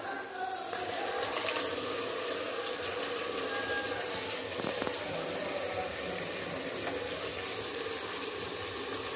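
Ginger-garlic paste sizzling steadily in hot oil and fried onions in a pressure cooker, the sizzle starting suddenly about half a second in as the paste goes in.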